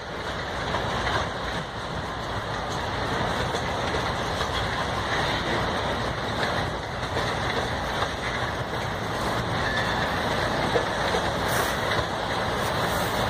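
Loaded coal cars of a freight train rolling past: a steady rumble of steel wheels on the rails, with a few faint clicks near the end.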